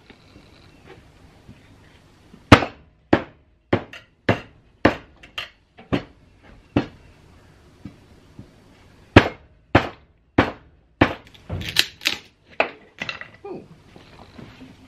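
A homemade wooden mallet striking a chisel, driving it into a wooden block held in a vise. It makes a run of sharp knocks, about two a second, starting a couple of seconds in and briefly going softer midway.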